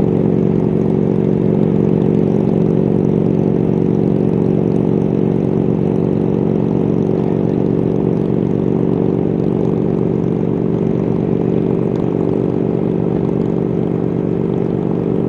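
1999 BMW R1100RT's boxer-twin engine running steadily at a constant highway speed of about 65 mph, with wind rush over the bike.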